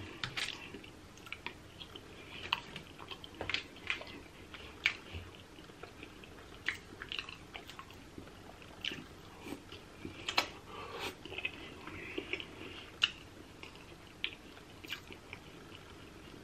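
Close-up eating sounds: wet chewing and lip smacking with irregular sharp clicks and crunches, as crab meat and seafood are bitten and chewed.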